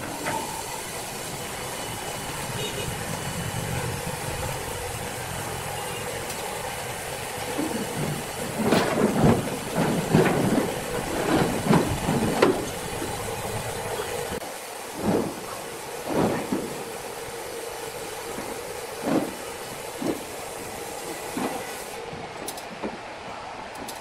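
Heavy metal chains rattling and clanking against the steel truck bed as they are handled and loosened from a large log, a dense run of clanks near the middle followed by single knocks every second or two, over a steady background hum.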